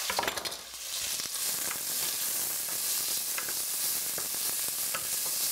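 Chopped celery, peppers and onion sizzling in hot olive oil in a stainless steel pan, the sizzle growing louder about a second in. A wooden spoon stirs them, with a few faint clicks and scrapes against the pan.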